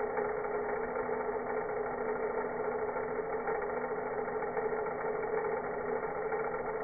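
Vacuum cleaner motor slowed down, a steady, unbroken drone with a strong low hum.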